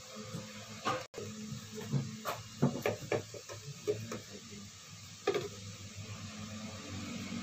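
Eating sounds at a table during a meal: scattered short clinks and taps of plates and a spoon, about a dozen spread unevenly over several seconds, over a low room murmur.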